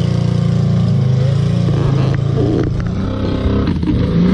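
ATV engine running, with a stretch of clattering and a few sharp knocks about halfway through, then the engine pitch rising near the end.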